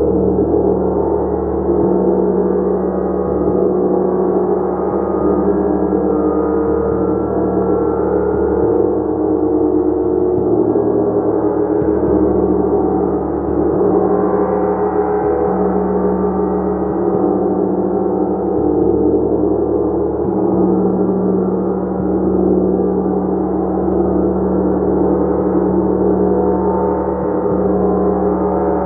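Gong played continuously: a dense, sustained wash of overlapping tones that swells and shimmers without pause.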